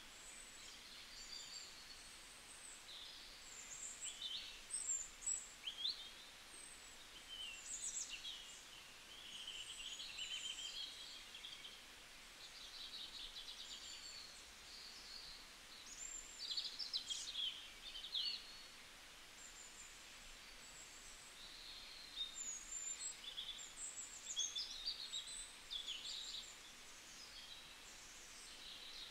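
Faint birdsong: small birds chirping and twittering in many short, high notes scattered throughout, over a low steady background hiss.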